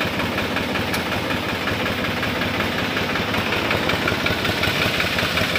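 Balwan 450 tractor's diesel engine idling steadily with an even, fast firing beat.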